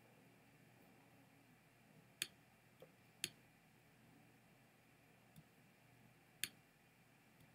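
Near silence broken by a few sharp, isolated computer clicks: three louder ones and two fainter ones, spread over several seconds.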